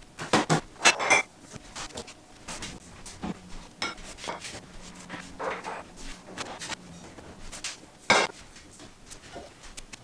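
Clinks and knocks of bottles, jars and plastic food containers being lifted out of a refrigerator and set down on a counter. Several come in quick succession in the first second or so, quieter handling follows, and there is another sharp knock about eight seconds in.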